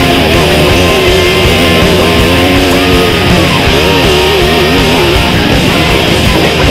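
Loud rock music led by electric guitar, with bending, wavering guitar notes over a full band.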